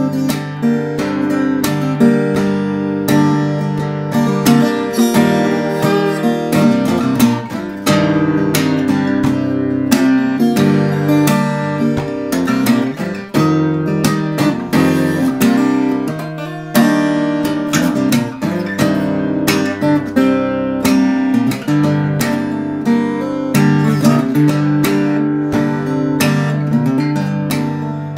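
Solo steel-string acoustic guitar in a low open tuning (C G C G Bb D), played as a fingerstyle arrangement with picked bass notes and frequent sharp strummed chords.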